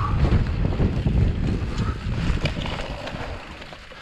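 Wind buffeting the microphone while a mountain bike rolls fast over a dirt trail, with tyre rumble and a few short rattles from the bike. It dies down over the last second.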